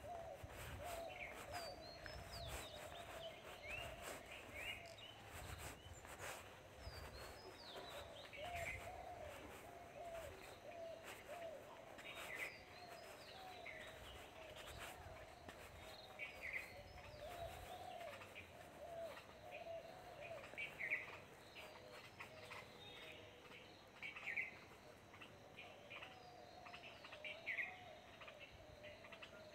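Faint birdsong: a short high chirp repeated about every two seconds over a steady, lower warbling chatter of calls.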